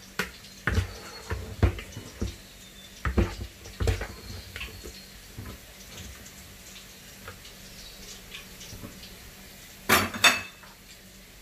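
Kitchen utensils, dishes and pans clinking and knocking as they are handled: a run of scattered knocks in the first few seconds, a quieter stretch, then two louder knocks near the end.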